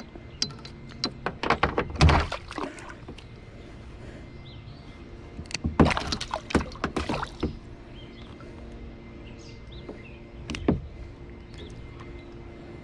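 Clicks, knocks and bumps from handling fishing gear and a small pickerel against a plastic kayak hull, in two clusters of rapid knocks a few seconds apart and then one single knock later on.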